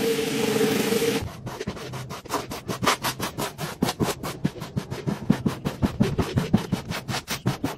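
A rotary floor-scrubbing machine runs with a steady hum for about a second, then cuts off. It gives way to quick, repeated scraping strokes, about four or five a second, of a squeegee pushing soapy water across a wet rug.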